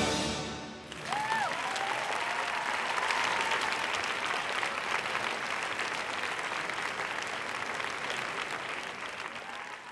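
Orchestral ballet music ends on a final chord, then an audience applauds, with a whistle rising and falling about a second in. The applause fades near the end.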